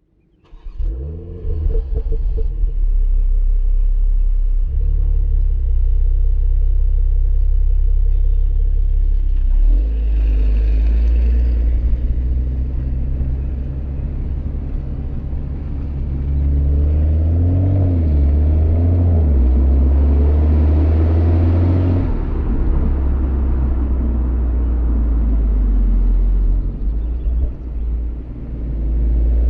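Exhaust of a stock BMW M340i's 3.0-litre turbocharged inline-six, heard right at the tailpipe in Comfort mode. It is a deep, steady rumble, with the engine note rising and falling a few times in the second half as the revs change.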